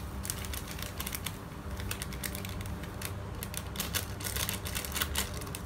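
Foil packet of flan powder crinkling and crackling in the hands as it is squeezed and shaken to empty the powder into a bowl, in quick irregular clicks that get denser toward the end.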